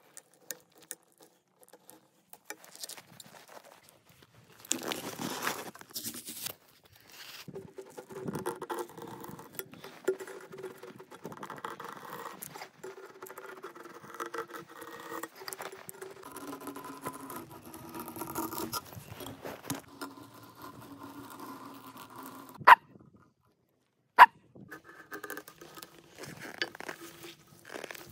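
A knife blade shaving a hard-frozen whole fish into thin strips: repeated scraping strokes, squeaking in shifting pitches through much of it, with two sharp clicks near the end.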